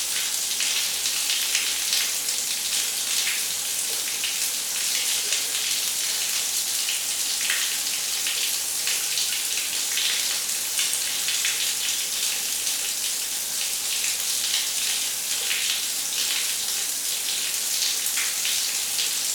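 Shower running: a steady hiss of water spray falling and splashing, with small irregular patters and no change in level.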